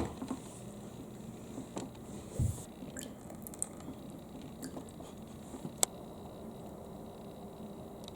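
Glass marbles clicking and tapping now and then, with a dull low thump about two and a half seconds in.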